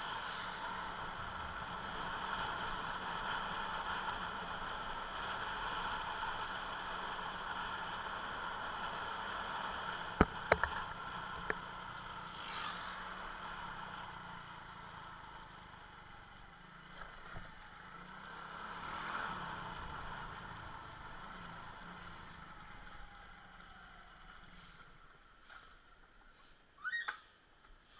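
Steady motor-vehicle and road noise, with a few sharp clicks about ten seconds in and vehicles swelling past twice before it fades toward the end.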